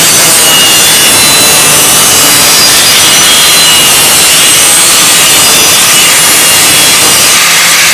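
Parkside PWS 125 E4 angle grinder with a diamond-coated disc running at full speed and cutting into a small hand-held object, throwing sparks. A loud, steady high whine mixed with abrasive rasping that does not let up.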